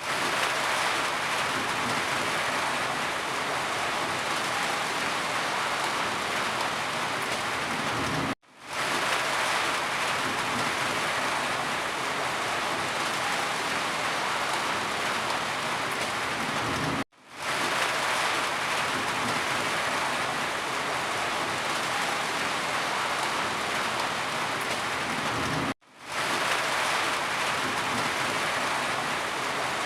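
Steady, dense rainfall. The sound cuts out briefly three times, about every eight and a half seconds, each time returning within a fraction of a second.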